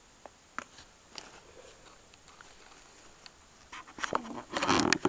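A few light clicks of small plastic toy dolls being handled and set into a toy Ferris wheel. Near the end there is a louder burst of rustling and knocking as the camera is moved about.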